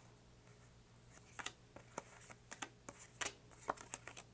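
Thin, glossy oracle cards being shuffled and passed between two hands: a run of light, quick card snaps and slides, sparse at first and coming thicker from about a second and a half in.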